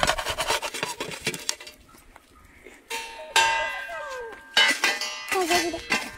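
A metal fire shovel scraping and clattering as hot embers are heaped onto a cooking pot's lid over an open wood fire. A sharp metallic clang about three seconds in rings on for about a second.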